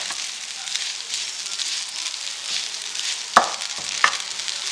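Rice and chopped onion frying in hot oil with a steady sizzle as they are stirred in the pan. The stirring utensil knocks sharply against the pan twice, a bit over halfway in.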